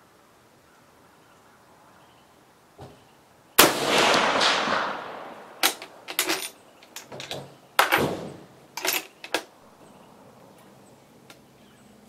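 A single shot from a Swedish M96 Mauser bolt-action rifle in 6.5x55mm, dying away over about a second. It is followed a couple of seconds later by a run of metallic clicks and clacks as the bolt is worked open and closed to eject the case and chamber the next round.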